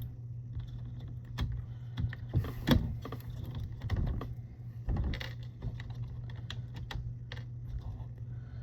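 Irregular small clicks and taps of plastic and metal as connectors are worked loose from a fuse box circuit board, over a steady low hum.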